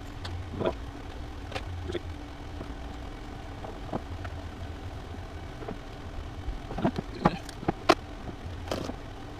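Scattered clicks and knocks from parts and tools being handled during the build, over a low hum that comes and goes.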